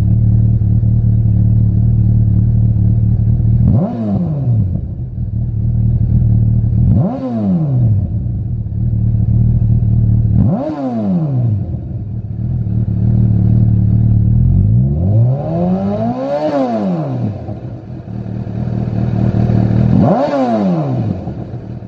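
Honda CB1000R's inline-four engine idling through a Lextek OP15 aftermarket silencer, with five quick throttle blips that each rise and fall back to idle. The fourth blip, a little past the middle, is held longer and revs higher than the others.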